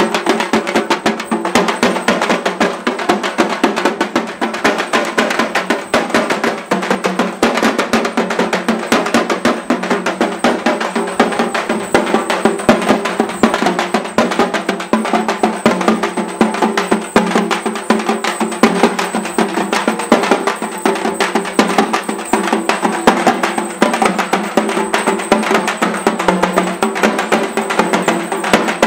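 Loud, fast, continuous drumming with a steady droning tone held underneath.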